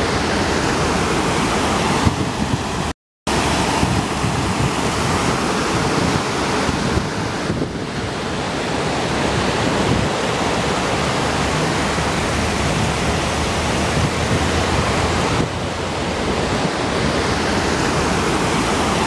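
Flash-flood water rushing over the stones of a shallow wadi bed, a steady rush mixed with wind buffeting the microphone. The sound cuts out for a moment about three seconds in.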